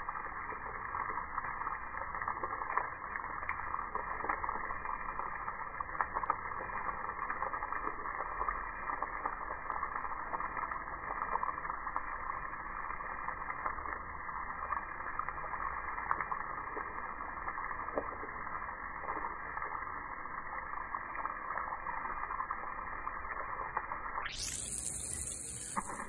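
Water from a garden hose spraying and splashing, slowed down with the slow-motion picture into a dull, steady rushing. About two seconds before the end it turns brighter and hissier for a moment.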